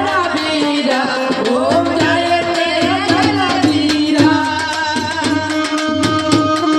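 Live devotional folk music: a voice sings a wavering, gliding melody over quick, even hand-drum strokes. From about four seconds in, held steady notes take over from the gliding line, with the drumming carrying on.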